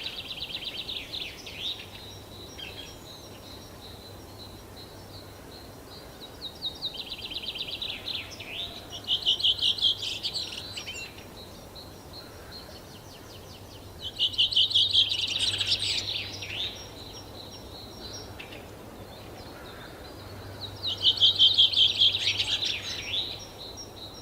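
Bird song: four bursts of rapid, high trilled notes with short falling sweeps, one every six or seven seconds.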